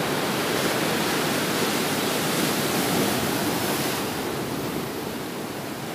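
Steady rushing wash of ocean surf.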